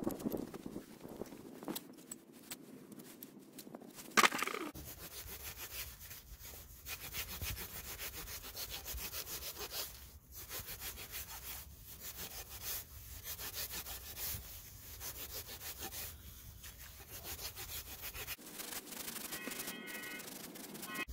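Steel hoof rasp filing a barefoot horse's hoof, repeated scraping strokes from about four seconds on, part of a barefoot trim. A single sharp crack about four seconds in is the loudest sound.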